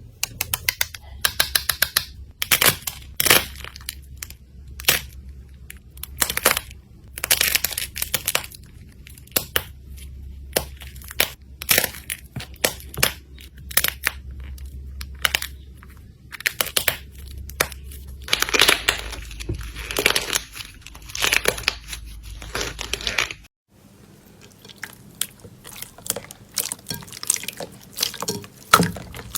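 Slime being squeezed and pressed by hand, making runs of crackling, popping clicks and crunches in uneven bursts. The sound drops out abruptly about 23 seconds in, then softer crackling follows.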